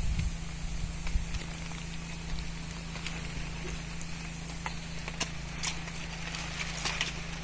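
Steady low hum of the power spray pump feeding a fiberglass arecanut spray pole, with scattered sharp clicks and taps as the hose and pole are handled, more of them near the end.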